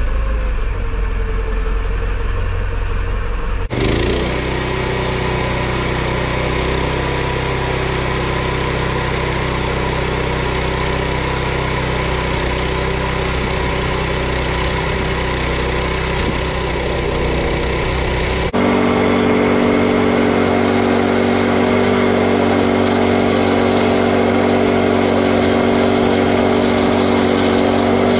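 Engine of a Frontier portable bandsaw mill running steadily, then louder and close by from about two-thirds of the way in, with a steady hiss, as the band blade saws along a green ironbark log. A tractor engine runs briefly at the start.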